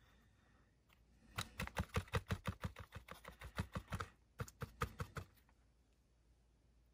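Brush stippling: a paintbrush dabbed rapidly against a small plastic barrel casting on a cardboard base, giving quick light taps about five or six a second, with a brief break before a last short run.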